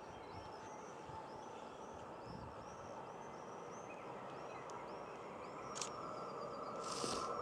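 A small bird sings a long run of quick, repeated high chirps over a steady distant rumble. Near the end a steady hum from an approaching electric commuter train grows louder.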